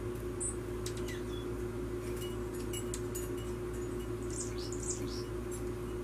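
Small songbirds giving short, high chip notes and calls, most of them clustered between about two and five seconds in, over a steady low hum.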